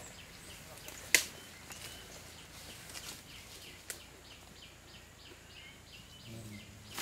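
Forest ambience with a bird calling in a quick, regular run of short high notes through the second half. There is a single sharp crack about a second in, the loudest thing here, and a smaller click near four seconds.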